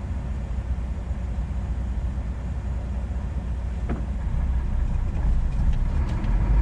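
Semi-truck's diesel engine and road noise heard from inside the cab while driving, a steady low rumble that grows a little louder near the end.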